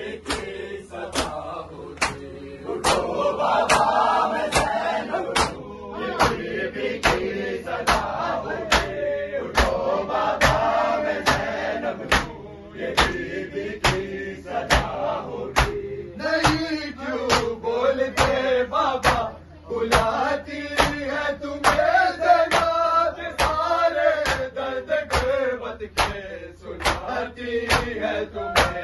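A group of bare-chested mourners doing matam, slapping their chests in unison in a steady beat of about one and a half slaps a second, under a nauha lament chanted by a chorus of male voices.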